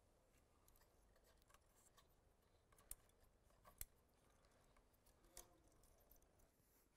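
Near silence: faint room tone with a few faint clicks from hands fitting the control-signal cable into the positioner housing, the clearest about three and four seconds in.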